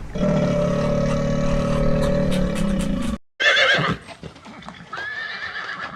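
A loud, steady, low held sound stops abruptly about three seconds in. A horse then whinnies with a quavering high call, and a further held high call follows near the end.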